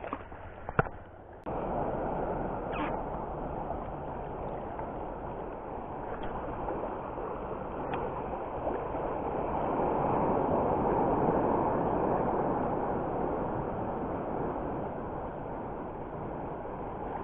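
Steady rushing and sloshing of sea water that starts abruptly about a second and a half in and swells in the middle, after a few faint clicks.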